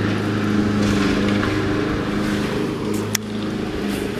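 Steady motor hum from the bass boat, most likely its bow-mounted electric trolling motor holding the boat while fishing, with a single sharp click about three seconds in.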